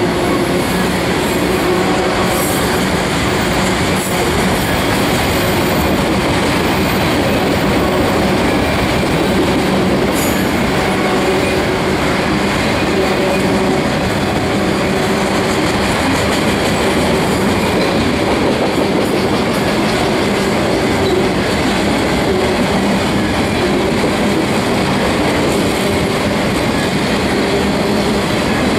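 Autorack freight cars rolling past, a steady rumble and clatter of steel wheels on rail. Now and then there is a brief high squeal from the wheels.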